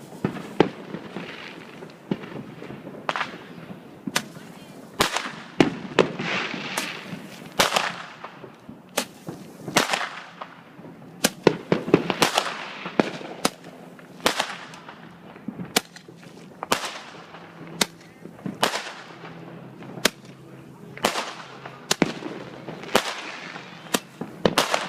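Consumer multi-shot firework cake firing shot after shot: sharp bangs about once a second, many followed by a fading hiss.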